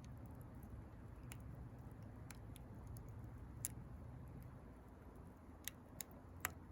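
Wood fire crackling: about seven sharp, scattered pops over a faint low rumble.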